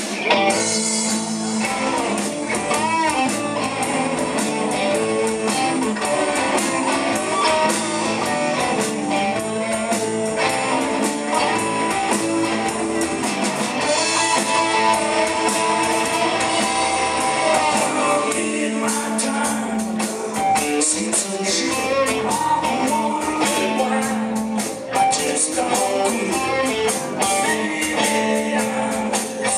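A rock band playing live: electric guitars, bass guitar and drums. The cymbals get busier about two-thirds of the way through.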